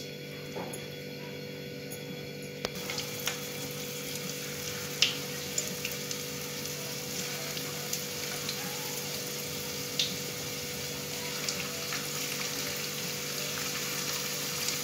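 Cornflour-battered chicken pieces sizzling in hot oil in a kadai: a steady hiss that grows fuller a few seconds in, with a few sharp pops.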